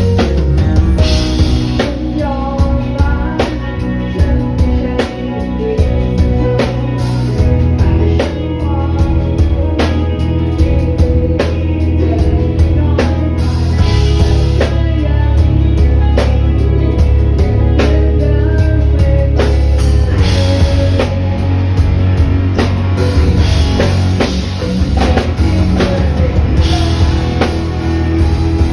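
A live rock band playing a song at a sound check: a drum kit keeping a steady beat over heavy bass and electric guitar.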